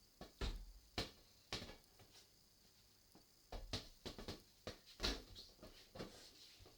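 About a dozen light, irregular taps and knocks spread over several seconds, of the kind made by a small ball being kicked, bouncing and handled.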